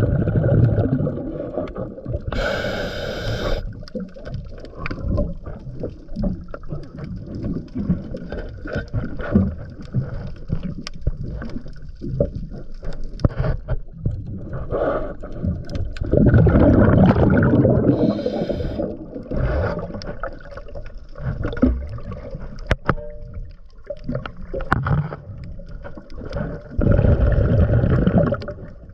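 Underwater sound of a scuba diver breathing through a regulator: short hissing inhalations and longer rumbling bursts of exhaled bubbles, with scattered small clicks and knocks in between.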